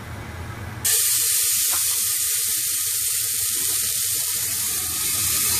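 Curry spice paste hitting very hot oil in a stainless steel pot: a loud sizzle bursts in suddenly about a second in and keeps going steadily.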